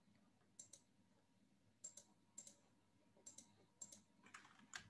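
Faint, spaced-out clicks of keys on a computer keyboard, mostly in quick pairs, about one pair every half second to second.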